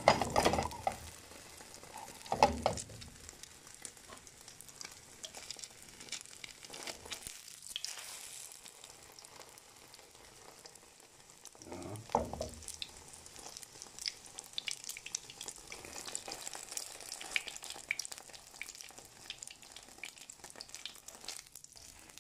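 Egg-dipped bread sizzling in hot oil in a nonstick frying pan, a steady fine crackle. A few louder bumps stand out at the start, about two seconds in and about halfway through.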